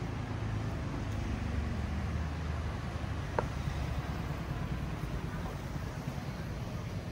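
City street traffic: a steady rumble of passing vehicles, with an engine hum that fades about halfway through. A brief high squeak comes about three and a half seconds in.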